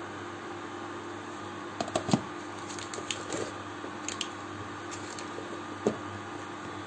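A glass lid set down onto a frying pan with a couple of sharp clinks about two seconds in, then a few lighter taps, over the steady hum of an induction hob.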